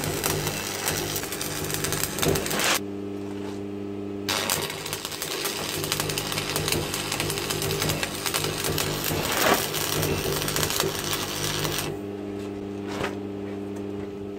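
Stick arc welding with a Sealey 140XT AC arc welder: the arc crackles and sizzles as the rod burns into the steel. It breaks off for about a second and a half near three seconds in, strikes again, and stops about twelve seconds in, leaving only a steady hum.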